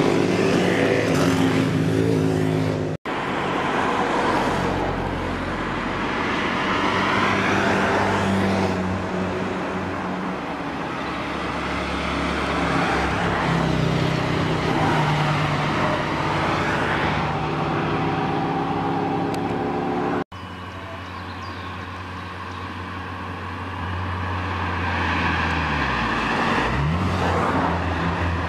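Old socialist-era motorcycles and then cars drive past one after another, engines running, the engine note rising and falling as each one comes by. Near the end one vehicle's pitch drops sharply as it passes close under. The sound cuts out for an instant twice.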